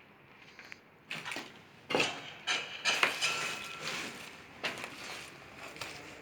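A run of irregular, sharp knocks and clanks of hard objects striking, starting about a second in and loudest around the middle.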